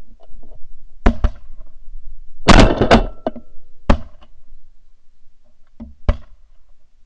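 A volley of shotgun shots fired by several hunters at passing geese: two shots about a second in, a loud run of overlapping shots around two and a half seconds in, a single shot near four seconds and two more in quick succession about six seconds in.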